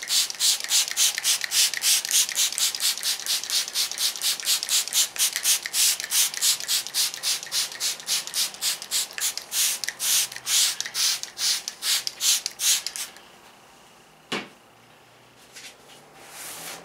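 Hand trigger spray bottle squirting soapy water onto a fiberglass trailer panel in rapid spritzes, about four a second, wetting the surface for a wet decal application. The spraying stops about thirteen seconds in, and a single knock follows shortly after.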